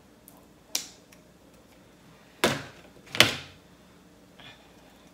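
Crab leg shell being cut and cracked open with kitchen scissors: three sharp cracks, the last the loudest.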